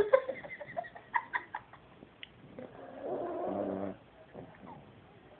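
A sleeping black Pomeranian snoring. A few short clicks come in the first two seconds, then one drawn-out snore about halfway through, then a quiet pause before the next breath.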